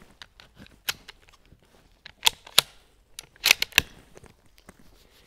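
Bolt action of a Bergara B14 Sporter rifle being worked by hand: a series of sharp metal clicks and clacks as a round is loaded and chambered, ending in a quick run of three or four clacks.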